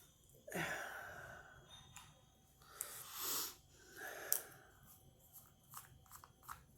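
A few faint, breathy, wheezy breaths and sniffs through a congested nose, with a run of small clicks near the end.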